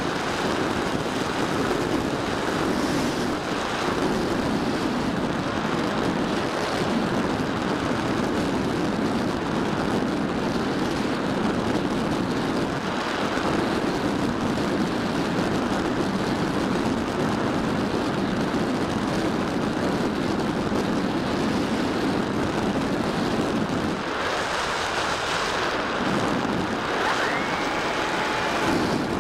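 Wind rushing over the onboard camera of a Bixler 3 RC glider in flight: a steady loud rush of air. It changes character about five seconds before the end, when a faint steady whine comes in.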